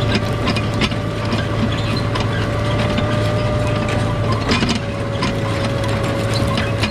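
Case IH 7120 tractor's diesel engine running steadily under a planting load, with a steady whine and frequent scattered clicks and rattles from the machinery.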